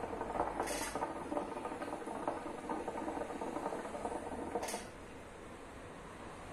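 Water bubbling in a hookah's glass base during one long, steady draw on the hose. The bubbling stops about five seconds in.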